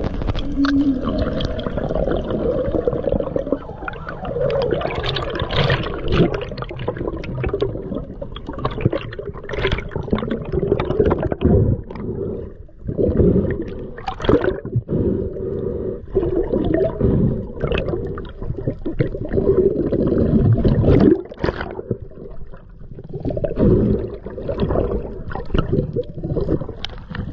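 Underwater sound at an action camera during a spearfishing dive: muffled, continuous rushing and gurgling of water, broken by irregular knocks and thuds.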